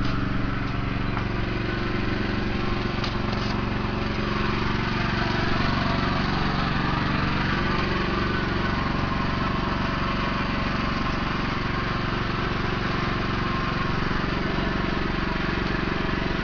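Small engine running steadily at a constant speed, a continuous even drone.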